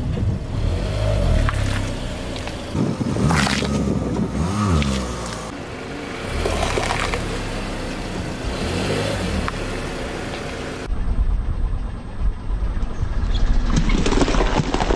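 A car tyre rolling over bell peppers on asphalt and crushing them, with several sudden wet crunches over the car's low running noise.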